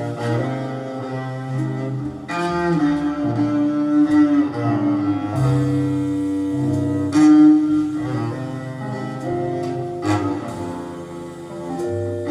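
Recorded instrumental music played back through a single-ended class A tube amplifier and speakers: long, held low notes that change every second or two.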